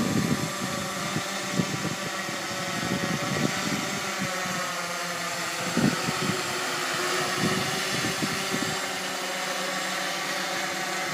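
Multirotor camera drone flying overhead: the steady whine of its propellers, wavering a little in pitch, over low irregular buffeting that dies down near the end.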